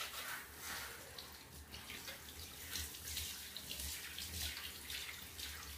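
Water from a handheld shower head spraying onto a small dog's wet coat in a bathtub, with irregular splashing.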